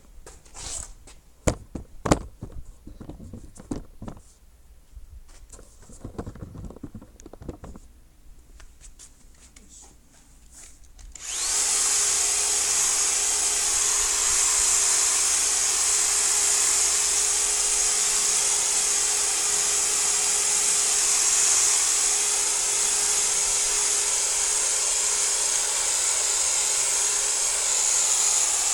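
A few handling knocks and clicks, then about eleven seconds in an electric car polisher starts up and runs steadily, with a high whirring hiss and a faint steady hum, polishing car paintwork.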